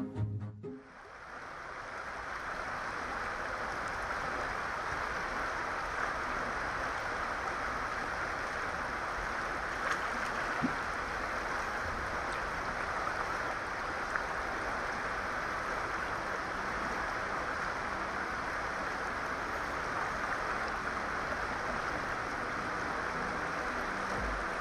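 Steady rushing of a fast-flowing river, fading in over the first couple of seconds and then holding even.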